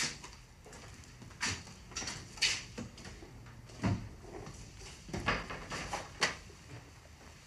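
A series of short, irregular knocks and clatters, about eight over several seconds, some sharp and some with a dull thud, like things being handled or set down.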